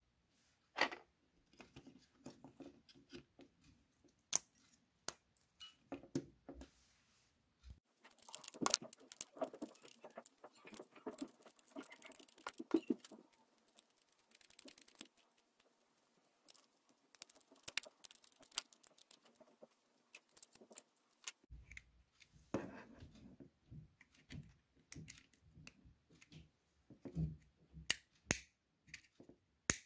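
Scattered sharp clicks, taps and scraping of hands handling the plastic housing, battery and small screws of a Braun Series 5 electric shaver during reassembly, with a denser run of scraping clicks in the middle while screws are driven in with a small screwdriver.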